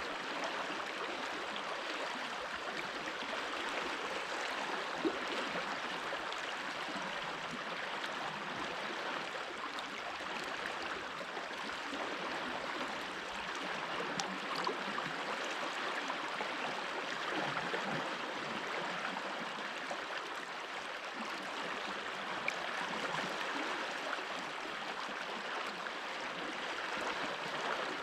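Mountain stream running and gurgling over stones, a steady rush of water with a few small splashes.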